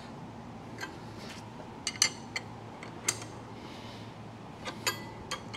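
Sharp metal clicks and clinks, about nine at uneven intervals, as a wrench is fitted onto and tightens the nut on a hold-down clamp stud, over a steady low hum.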